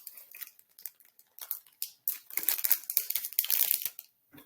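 Candy bar wrapper being torn open and crinkled, in irregular crackles that come thickest in the second half.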